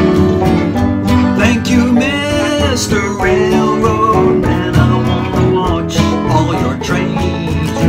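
Bluegrass band playing an instrumental break on acoustic string instruments, guitar and banjo among them, with no singing.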